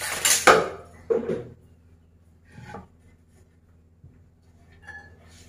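Kitchen utensil handling: a loud scrape and rattle in the first second, a shorter one just after, then lighter scrapes and taps of a metal spatula on a wooden cutting board.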